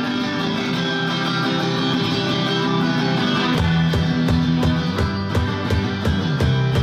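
Live punk rock band with electric guitar, bass guitar and drums playing the opening of a song. Guitar notes ring over a steady ticking beat, and low drum hits fill out the beat from about three and a half seconds in.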